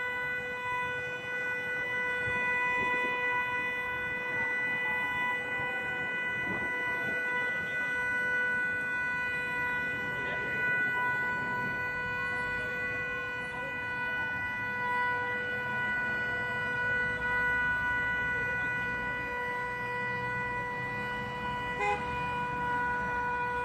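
A horn blaring as one steady, unbroken tone, with faint wailing sirens underneath and a short click near the end.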